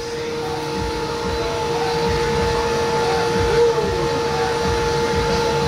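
A steady machine hum with a constant whine over a low rumble, growing a little louder over the first couple of seconds. A short squeak rises and falls about three and a half seconds in.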